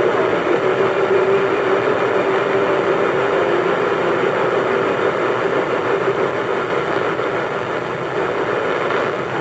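Sony boombox tuned to AM 1450 putting out steady static hiss with the station faded out, the noise of distant thunderstorms. A faint steady tone sits under the hiss and weakens through the first half.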